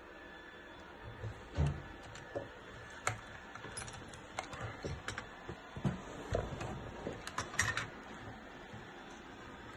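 Hard plastic toy casing parts and wiring being handled and shifted: scattered light clicks, taps and knocks, with a louder knock about one and a half seconds in.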